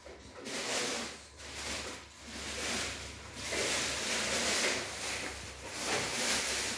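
Rustling, rubbing handling noise that swells and fades several times, the kind made by a hand-held phone being moved and rubbed near its microphone.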